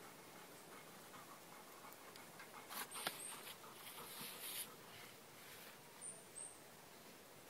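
Faint rustling of garden ground-cover plants as a golden retriever moves through them, with a short run of soft, irregular noisy bursts in the middle.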